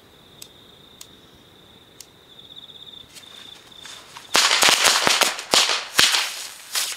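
A stack of Double Happy firecrackers going off: a rapid, irregular string of sharp bangs, beginning a little past halfway and lasting about two and a half seconds.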